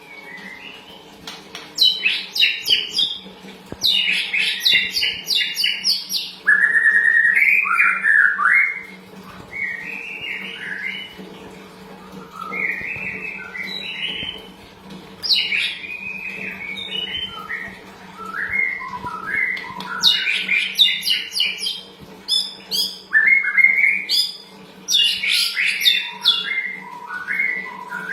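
A pastol songbird singing: bursts of fast chirps and trilled, pitch-sliding phrases with short pauses between them, over a steady low hum.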